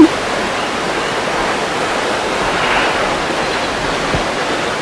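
A steady, pitchless rushing noise, the kind made by heavy rain or running water, with a slight swell about two and a half seconds in and one soft knock a little after four seconds.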